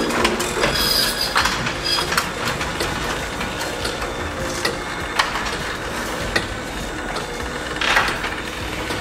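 Chamberlain RJO20 jackshaft garage door opener running a sectional garage door along its steel tracks: a steady mechanical running sound with scattered clicks and rattles from the moving door.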